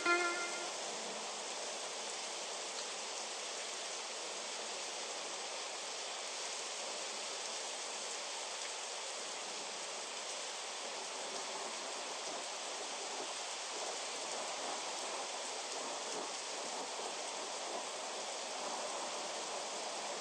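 Steady rain falling, an even hiss of many drops with no change in strength. The last plucked notes of an acoustic guitar die away in the first second.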